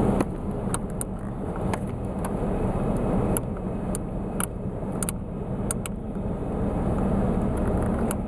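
Steady low running hum of the van, with a scattered series of small sharp plastic clicks and taps as the bulb socket is pushed in and twisted into the control panel.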